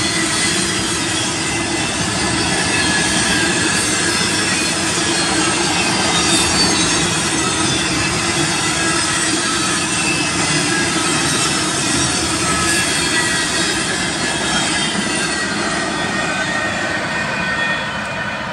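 Intermodal freight cars carrying trailers and containers rolling past on steel rail: a steady rumble and rattle of wheels and cars, with a thin, high wheel squeal over it. The sound drops off a little near the end as the last cars pass.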